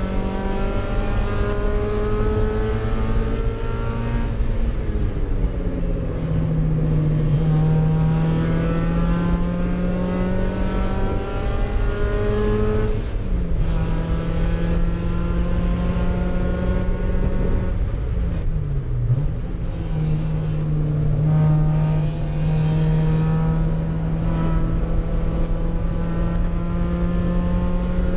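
Mazda Miata race car's four-cylinder engine heard from inside the cabin, running hard on track, its pitch climbing through the revs. Three times the pitch dips briefly as the throttle comes off, then the engine pulls again.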